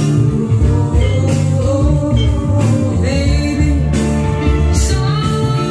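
Music: a song with a singing voice and guitar over a steady bass line.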